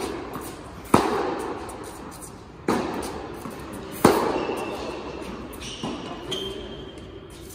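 Tennis ball struck by rackets and bouncing on an indoor hard court during a rally: three sharp hits, each ringing on in the large hall, then fainter knocks and a thin high squeak near the end.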